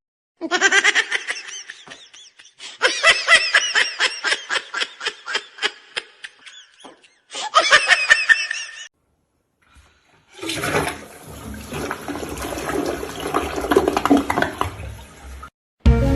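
A person laughing in quick repeated bursts, then about five seconds of rushing water.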